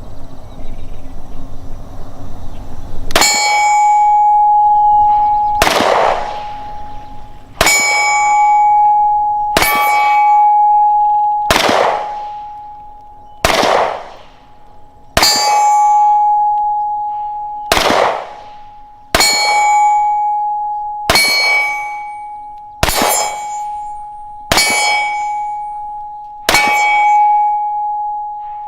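About thirteen shots from a Springfield XD(M) Compact 9mm pistol, fired at a slow, steady pace of one every couple of seconds, the first about three seconds in. A steel target rings after each hit, with a clear clanging tone that lingers and fades between shots.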